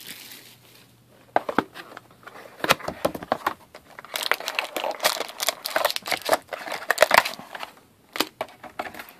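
Foil trading-card packs and their cardboard hobby box being handled: quick irregular crinkles, rustles and clicks as the packs are pulled from the box and stacked.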